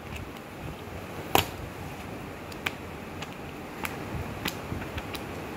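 Pages of a bound paper notes booklet being turned by hand: a run of short, crisp paper flicks over a low hiss, the loudest about a second and a half in.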